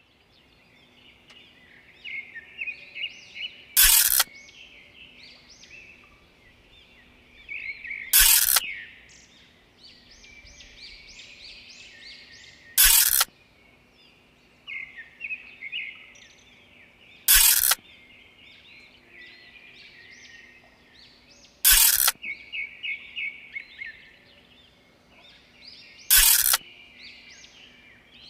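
Birds chirping in quick runs of high notes. About every four and a half seconds a loud, short burst of noise cuts across them, six times in an even repeating pattern.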